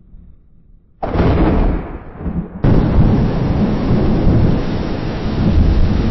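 Thunder rumbling: a faint low rumble, then a sudden loud thunderclap about a second in that dies back. A second peal begins abruptly just past halfway and holds as a heavy rumble over a steady hiss like rain.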